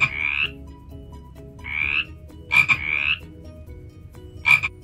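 Frog croaking sound effect, about four short croaks over soft background music.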